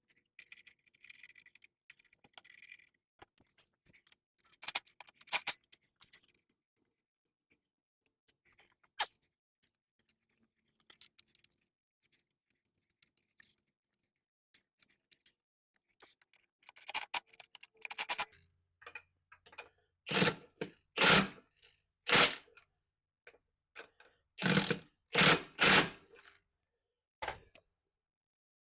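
Hand tools and metal parts knocking and clanking while working on a golf cart wheel and tire: scattered clanks at first, then a run of sharp, loud knocks, about one a second, in the second half.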